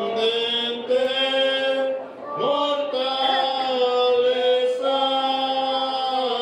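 Slow religious chant sung in long drawn-out notes, with a brief break for breath about two seconds in and again near five seconds.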